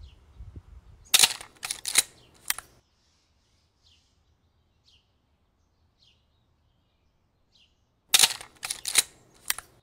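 Film camera shutter and advance-lever clicks: a quick run of four or five sharp mechanical clicks, then the same run again about seven seconds later. Faint bird chirps come about once a second in between.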